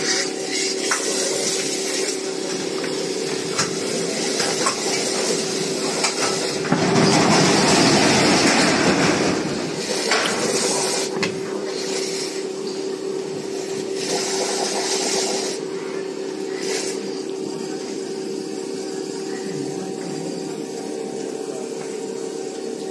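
Coffee being made at a street stall: a steady hum underneath, with a loud rushing pour of liquid for a few seconds near the middle and a shorter hissing pour later, as coffee is poured from a steel jug into a small cup.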